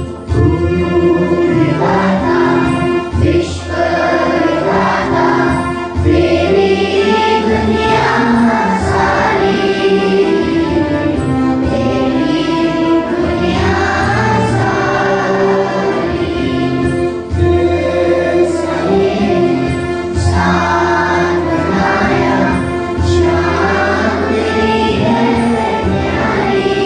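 A group of schoolchildren singing a prayer together in chorus into microphones, over steady instrumental accompaniment.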